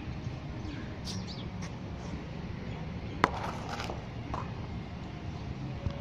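Low steady rumble with a few faint, short, high bird chirps, and one sharp click a little over three seconds in.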